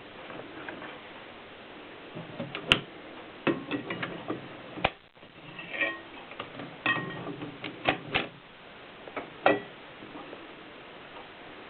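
Mignon 4 index typewriter mechanism clicking and snapping at an uneven pace, with several sharp, loud strikes in the middle stretch and quieter gaps before and after.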